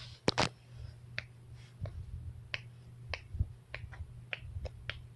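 Finger knuckles being cracked over and over: a string of about a dozen sharp pops, roughly two a second, with the loudest pair about a third of a second in.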